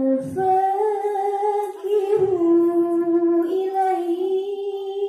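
A girl's voice singing a sholawat (Islamic devotional song) into a microphone, in long held notes that step slowly down and back up.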